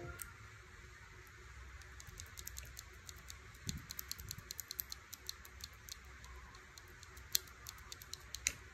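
A loose Gateron Pro Yellow linear keyboard switch pressed repeatedly between the fingers, giving a quick, irregular run of faint, light clicks, thickest in the middle, with a couple of sharper clicks near the end.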